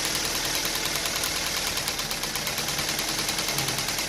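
Maruti Swift's engine idling with a steady, evenly repeating pulse and a strong hiss over it. The car has a CNG injector misfire.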